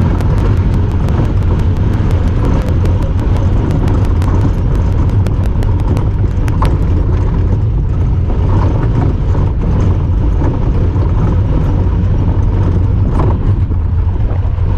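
Honda Talon 1000R side-by-side running steadily under way, a loud, even low rumble from its engine and drivetrain. For about the first half a fast, regular ticking sits over it, a noise made by the camera.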